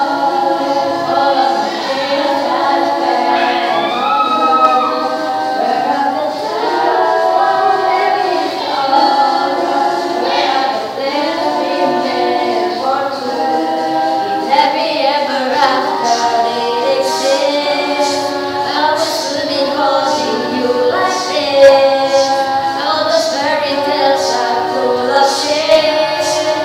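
A cappella group of young female voices singing in close harmony, several parts at once with no instruments. From about the middle on, a sharp hissing beat recurs roughly every half second.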